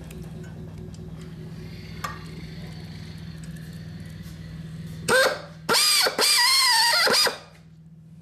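Drill spinning a counterboring tool in a motorcycle engine case bolt hole, run in three short bursts about five seconds in: a high whine that rises as it spins up and wavers while cutting, then stops sharply. Before the bursts there is only a steady low hum.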